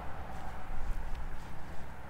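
Wind buffeting the microphone, a low uneven rumble, with a few faint ticks over it.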